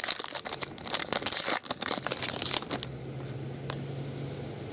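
Foil wrapper of a trading-card pack crinkling and tearing as it is ripped open and handled. About three seconds in the crinkling stops, leaving a faint steady low hum.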